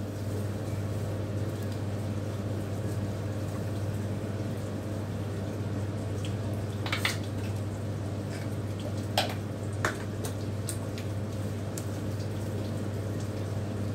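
A steady low hum fills a small tiled bathroom, with faint trickling and dripping of water in the washbasin around the wet dog. A few short sharp clicks stand out about seven seconds in and twice between nine and ten seconds.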